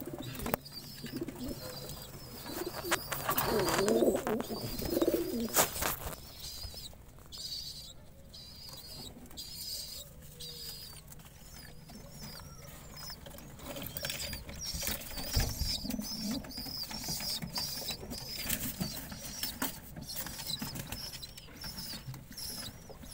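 Pigeon squab giving rapid, repeated high-pitched begging peeps. About three to five seconds in, an adult pigeon coos low, among scattered clicks and rustles.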